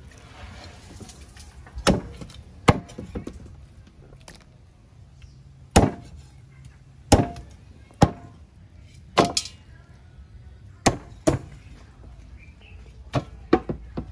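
Cleaver chopping raw chicken on a wooden chopping block: about a dozen sharp, irregular chops, a second or two apart.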